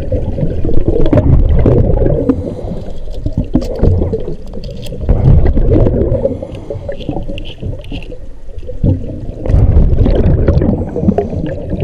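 Scuba diver breathing through a regulator, heard underwater: loud rushes of exhaled bubbles in several bursts a few seconds apart.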